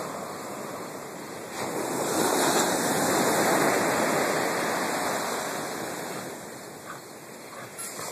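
Ocean surf breaking and washing up the beach: a steady rush of water noise that swells about a second and a half in, then slowly dies away.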